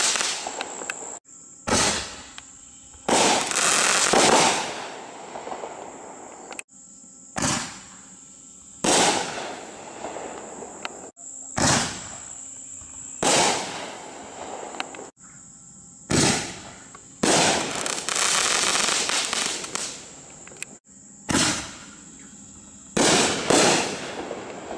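Reloadable aerial firework shells from a mortar tube, fired one at a time, about five in all. Each one goes as a launch bang, then the burst about a second and a half later, with a crackling, fading sizzle after the burst.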